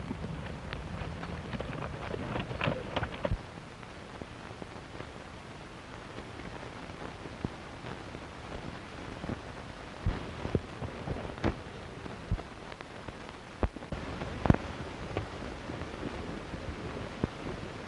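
Steady hiss of an early sound-film optical soundtrack, with scattered clicks and pops. A cluster of sharp knocks comes in the first three seconds, and a louder pop comes near the end.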